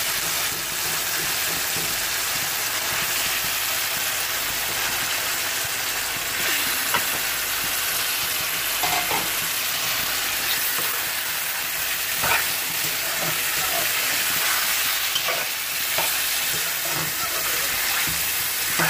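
Chicken pieces and tomatoes sizzling steadily in hot oil in a metal karahi, with a spatula scraping and knocking against the pan a few times.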